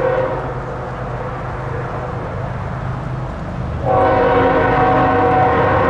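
Freight locomotive air horn sounding a chord of several steady notes: one blast tails off just after the start, and a long blast starts abruptly about four seconds in and holds. Under it runs the steady low rumble of the passing diesel freight train.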